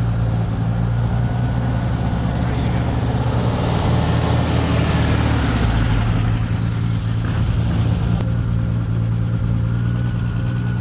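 A 1971 MGB GT's four-cylinder engine runs steadily at low revs while the car is manoeuvred slowly. A rushing noise swells and fades in the middle.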